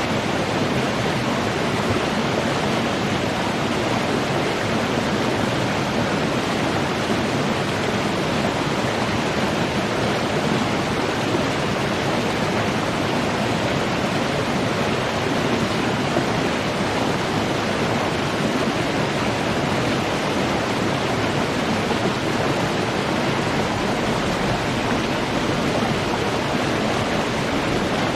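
Running water: a steady, even rush of flowing water with no pauses or changes.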